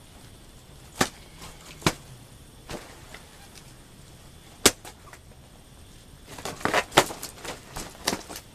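A series of sharp cracks or pops: single ones spaced a second or more apart, then a quick cluster of them near the end.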